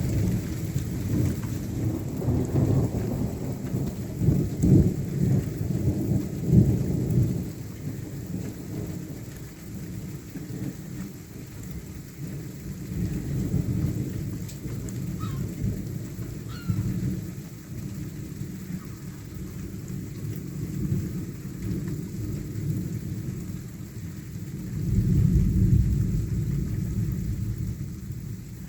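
Thunder rumbling in long rolls, loudest in the first several seconds and swelling again near the end, over steady rain.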